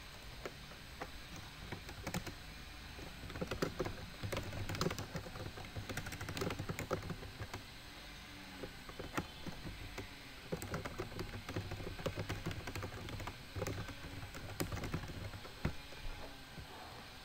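Typing on a computer keyboard: irregular runs of quick key clicks.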